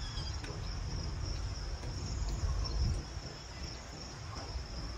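Insects, crickets by the sound of it, trilling steadily in one high, unbroken band, over a low rumble.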